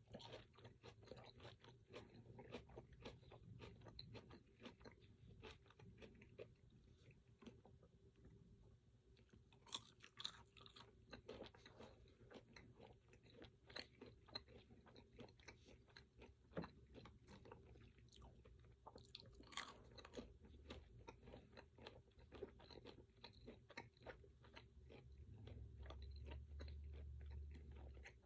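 A person chewing crunchy food close to the microphone: a rapid, irregular run of small crunches and mouth clicks throughout.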